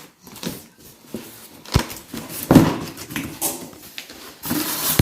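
Parcel packaging being torn open and handled: irregular bursts of ripping and rustling, with a thump a little under two seconds in and the loudest rip just after.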